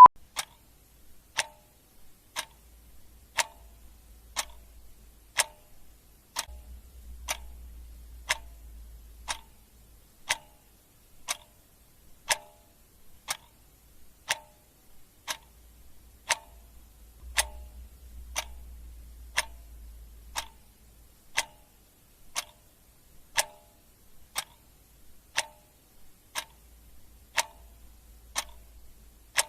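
Clock ticking steadily at one tick a second. Under it is a faint low rumble that swells and fades every ten seconds or so.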